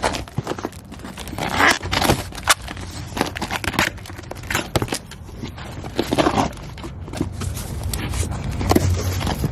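Cardboard shipping box being torn open by hand without a knife: irregular ripping of tape and cardboard, with scraping and crinkling of the packaging.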